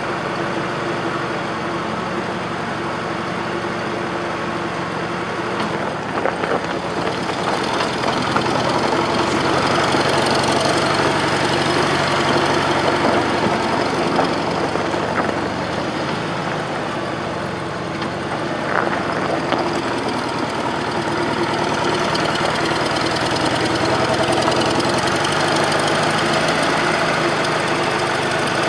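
Bobcat 610 skid-steer loader's Wisconsin gasoline engine running steadily, getting louder about seven seconds in, easing off briefly around nineteen seconds, then picking up again.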